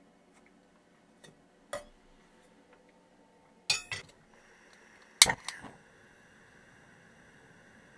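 Metal saucepan clinking onto the pan support of a gas hob, then a few sharp clicks as the burner is lit about five seconds in, followed by the gas flame's steady hiss.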